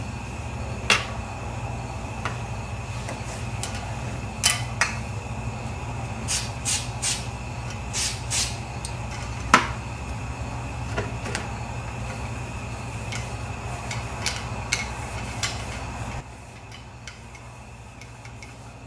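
Scattered clicks and knocks as a shotgun's barrel and parts are handled during cleaning, over a steady low hum that cuts off about 16 seconds in.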